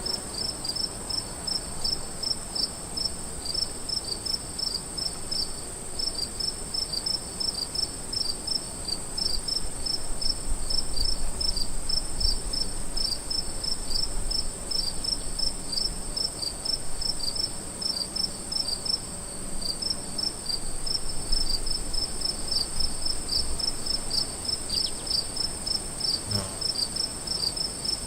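Crickets chirping: a steady high trill runs throughout, with regular short chirps over it, about three a second.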